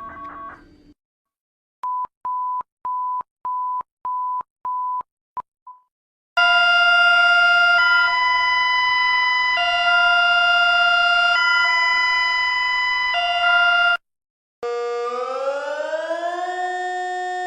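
Emergency alert tones played one after another. First comes a run of about seven short, steady beeps, two a second, fading out. Then a loud alert tone switches between two chords every second and a half or so, and after a short break a siren wail rises slowly and falls again.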